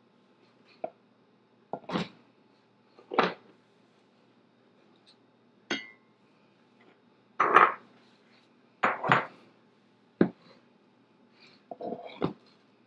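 Kitchen clatter from glass prep bowls and skillets being picked up and set down on a smooth glass cooktop: a string of separate knocks and clinks, the loudest a little past the middle.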